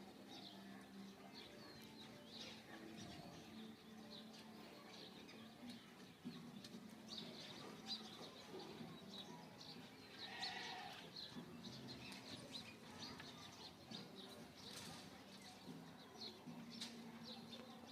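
A green parrot making faint, short, high chirps over and over, with one louder, longer call about ten and a half seconds in. A low steady hum runs underneath.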